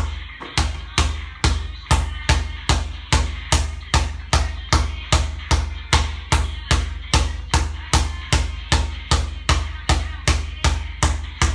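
A basketball pounded steadily on a hard court in a dribbling drill, about two and a half bounces a second, each with a deep ringing boom. The bouncing stops near the end.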